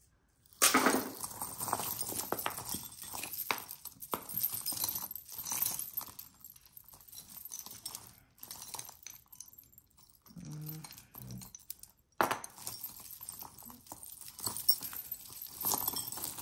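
Metal costume jewelry clinking and rattling as pieces are handled and sorted by hand, with a sharp clatter about half a second in and another near twelve seconds.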